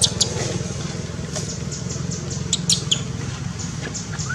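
A steady low engine hum, with a few sharp clicks over it and a short rising chirp near the end.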